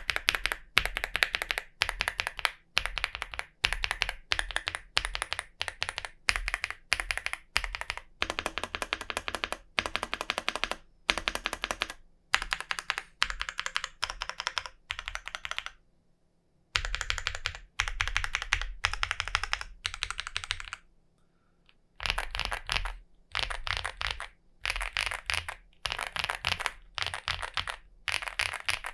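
Chilkey ND75 mechanical keyboard in its top-mount configuration being typed on: fast runs of key presses, with short breaks about sixteen and about twenty-one seconds in.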